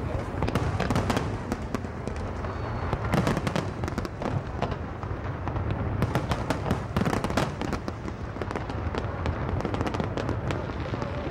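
Aerial fireworks shells bursting and crackling over a steady low rumble. Thick clusters of rapid pops come about half a second in, around three seconds in, and again from about six to seven and a half seconds.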